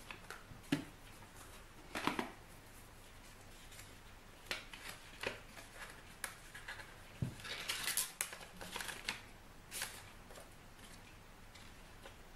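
Paper rustling and crackling in irregular bursts as a gift-wrapped parcel is unwrapped and the white paper inside is handled, with the busiest stretch of crinkling about eight seconds in.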